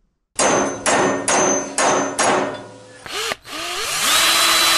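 Logo sound effect: five metallic hammer strikes, about two a second, each with a short high ring. Then, about three seconds in, a quick swoop and a rush of noise that builds up and holds steady.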